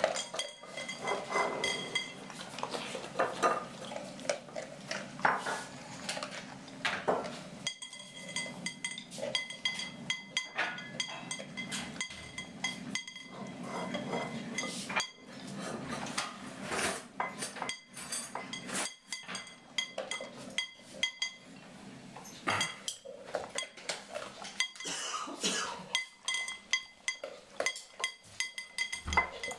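Welsh Springer Spaniel eating from a ceramic dog bowl: irregular clinks and knocks of its teeth, muzzle and food against the bowl.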